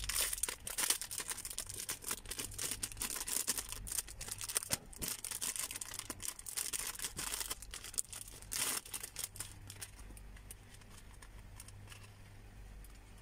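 Small clear plastic bags of earrings crinkling and rustling as they are handled and opened, in quick irregular crackles that thin out over the last few seconds, over a faint low hum.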